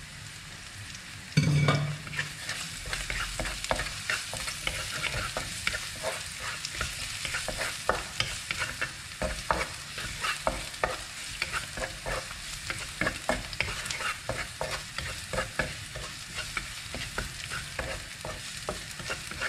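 Stir-fry sizzling in a frying pan while a spatula stirs and scrapes, with frequent quick clacks against the pan. A loud knock about a second and a half in.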